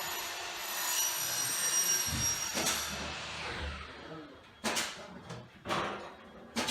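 A steady rushing noise with faint high-pitched whines for about three seconds, fading, then three sharp knocks about a second apart near the end.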